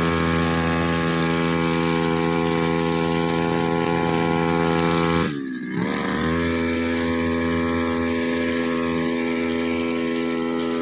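Brushcutter engine running steadily at a constant speed. About five seconds in its speed and level drop briefly, then climb back to the same steady pitch within about a second.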